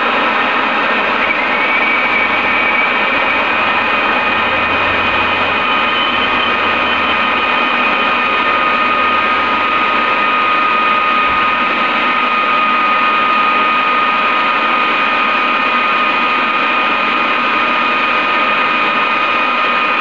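Homemade turbojet built from a turbocharger running steadily: a loud rush of air and combustion with a steady high-pitched turbine whine.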